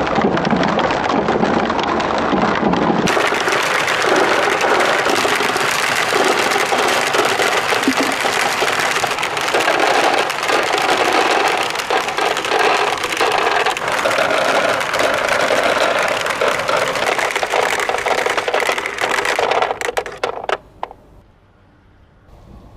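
Many marbles rolling and clacking together down a plastic spiral somen nagashi slider, a dense rattling clatter. Near the end a few last clicks sound and the rattling stops, leaving only a faint trickle.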